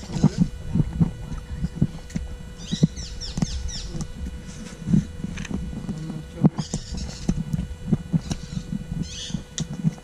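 Irregular short low knocks and bumps, with three brief bursts of high, rapid chirping calls from a small animal or bird, over a faint steady hum.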